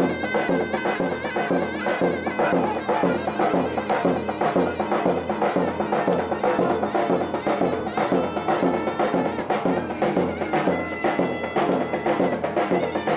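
Turkish folk music of zurna and davul: a wavering reed-pipe melody over a steady drum beat.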